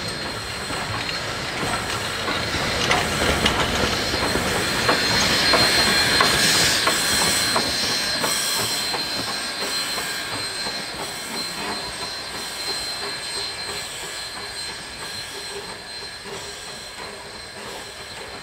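Steam-hauled heritage passenger train (PB15 class locomotive and carriages) passing by, its wheels clicking over rail joints with a thin, steady high squeal. It is loudest about six seconds in, then fades as it draws away.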